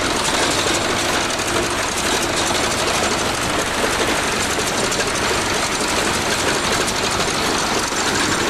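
Bulldozer running steadily, its engine and running gear making a fast, even mechanical clatter.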